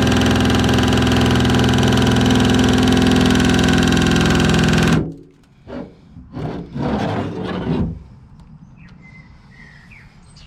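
Drill-driven nibbler (Metal Sniper type) punching its way through a van's sheet-steel side panel: a loud, steady buzzing chatter that cuts off suddenly about five seconds in. A few brief knocks and rattles follow.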